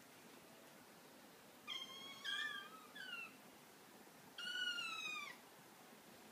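Kitten meows, high-pitched: three short meows in quick succession about two seconds in, then one longer, slightly falling meow a little past the middle.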